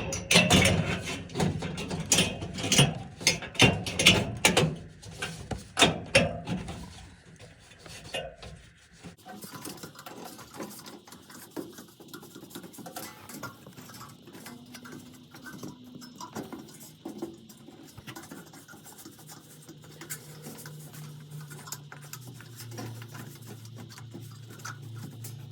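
Sheet-metal duct parts knocked and clattered while being fitted, a run of loud sharp knocks. About nine seconds in this gives way abruptly to quieter, steady scraping and rubbing of metal.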